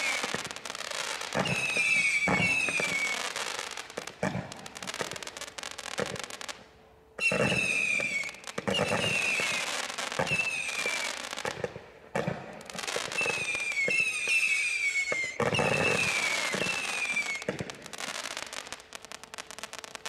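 Bright Star Penetrator 800-shot firework barrage cake firing rapidly: a stream of shots with repeated falling whistles and crackling. It breaks off briefly twice and stops near the end as the cake finishes.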